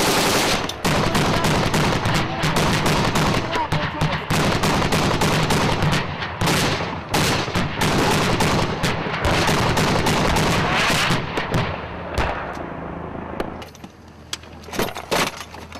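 Heavy automatic weapons fire from armored vehicles: rapid, nearly continuous bursts of shots that die away about two seconds before the end. A vehicle engine runs underneath, and a few sharp knocks come near the end.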